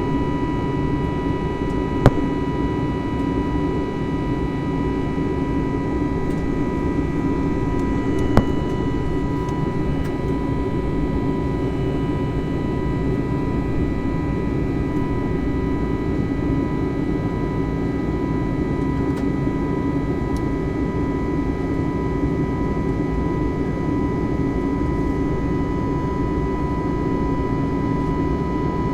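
Steady cabin noise of an Airbus A320 heard from inside the cabin: a low, even rumble with a steady high whine over it. Two sharp clicks, about two seconds and eight and a half seconds in.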